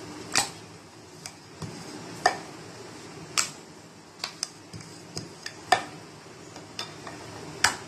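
Rolling pin knocking and clacking against a stone rolling board as dough is rolled out: about a dozen sharp, irregular clicks.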